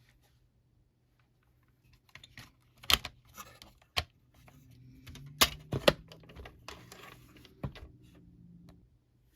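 Sharp plastic clicks and taps of keys being pressed on a Brother P-touch label maker as a label is typed, a few seconds apart, with a faint low hum in the second half.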